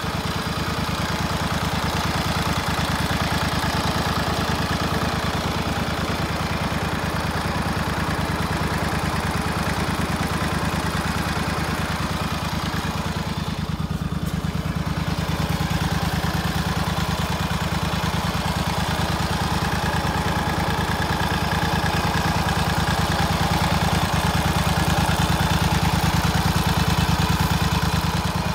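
The 1995 John Deere 345 lawn tractor's Kawasaki FD590V liquid-cooled OHV V-twin engine runs steadily at an even speed, close to the open engine bay. It gets slightly louder near the end.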